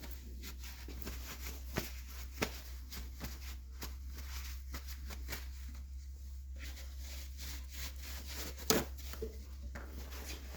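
Rag or shop towel wiping excess grease off freshly installed isolastic rubbers: soft rubbing and scuffing with scattered small knocks, and one sharper knock near the end.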